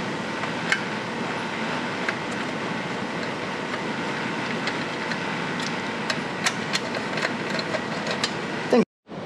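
Scattered light metallic clicks of a hand ratchet and extension turning a screw on a mini-bike engine's fan shroud, heard over the steady whir of a shop fan. The sound cuts out abruptly near the end.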